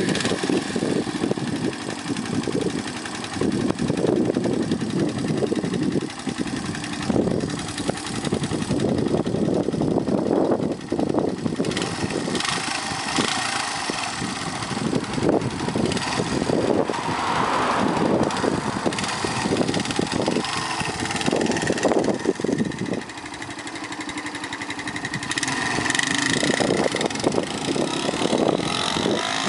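Yamaha SR125's single-cylinder four-stroke engine running just after starting, idling unevenly with small surges of throttle. Near the end it pulls away under power.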